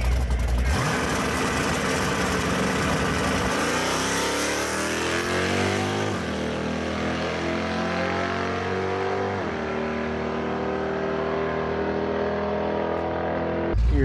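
The naturally aspirated 385 small-block Chevrolet V8 of a Fox-body Mustang drag car is held on the two-step rev limiter at the line, then launches about a second in and accelerates hard down the strip. Its pitch climbs, drops sharply twice, about six and nine seconds in, as the TH400 automatic upshifts, and climbs again after each shift.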